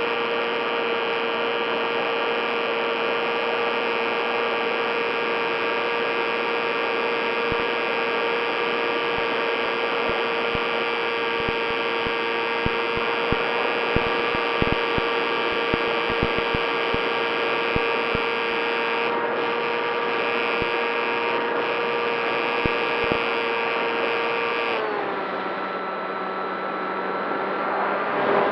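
Motor and propeller of an RC FPV model plane running at steady throttle: a constant whine with several overtones, with scattered clicks through the middle. About 25 seconds in the pitch drops and it gets quieter as the throttle is eased back.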